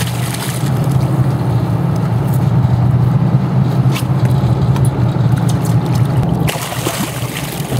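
A boat's engine running steadily with a low hum while water sloshes at the side of the hull. From about six and a half seconds in there is louder splashing as a released fish kicks free and swims off.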